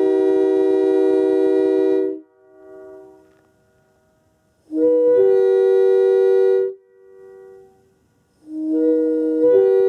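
1964 Leslie S3K tabby three-chime air horn sounding its chord in long blasts: the first cuts off about two seconds in, a second lasts about two seconds in the middle, and a third starts near the end with its chimes coming in one after another. A faint echo trails each cutoff.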